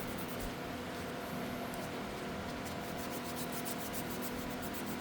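Steady hand rubbing on the metal of a rusty hand tool, scrubbing the rust off.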